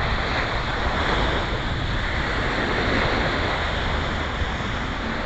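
Ocean surf washing in on the beach: a steady rush of breaking waves coming in heavily.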